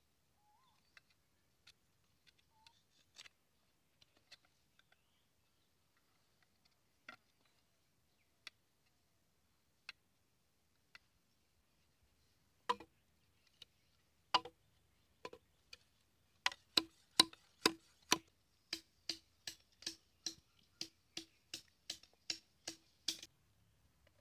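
Sharp knocks on bamboo while a bamboo trap is being worked. Scattered faint clicks come first, then from about halfway an even run of louder knocks, about two a second, each with a short ringing tone.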